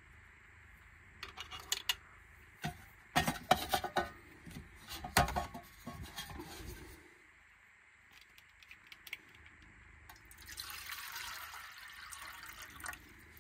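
Light metal clinks and knocks as a metal pot stand is fitted onto a small spirit burner and a titanium canteen cup is handled. Near the end, water is poured from a plastic bottle into the titanium cup in a steady pour.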